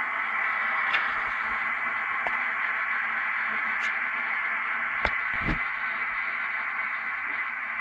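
Steady hiss with a few light clicks scattered through it and a soft low knock about five seconds in.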